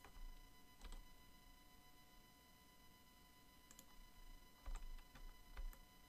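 Faint, scattered clicks of a computer mouse and keyboard keys over quiet room tone: a single click about a second in, another a little before the four-second mark, and a short cluster of clicks near the end.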